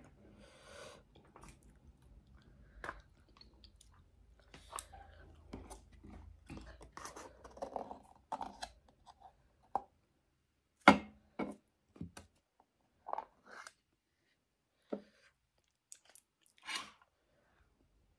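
A person chewing food close to the microphone, as in a mukbang: irregular wet mouth clicks and short bursts of chewing noise, the loudest about eleven seconds in.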